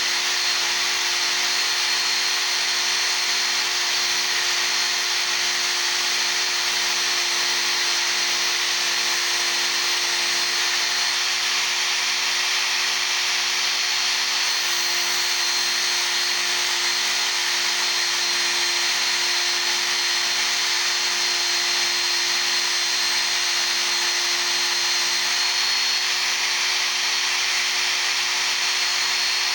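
Work Sharp Ken Onion Edition electric belt sharpener running steadily while a steel chisel is ground on its abrasive belt. The sound is a continuous grinding hiss with a thin, steady high whine from the motor.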